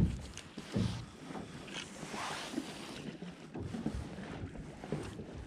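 Sounds aboard a small boat at sea: one loud knock at the very start, then scattered lighter knocks and rustles over a soft wash of wind and water.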